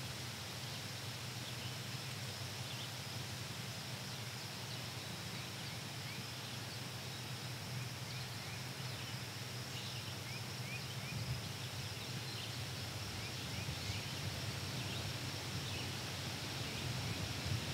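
Steady outdoor background hiss with a low hum beneath it, and faint, short, high rising chirps scattered through the middle of it, like small birds calling at a distance.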